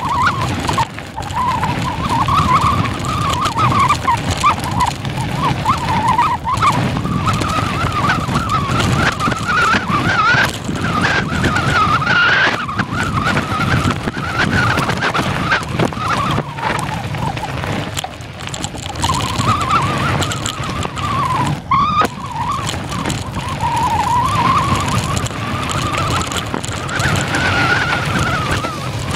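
Mountain bike riding down a rough trail: tyres rolling over rock and gravel with a steady rumble, clicks and knocks from the bike over bumps, and a wavering buzz that rises and falls in pitch.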